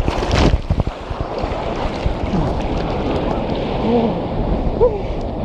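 Ocean surf rushing and splashing around a phone in a waterproof case, with a loud burst of water in the first half second, then a steady wash of water and wind on the microphone.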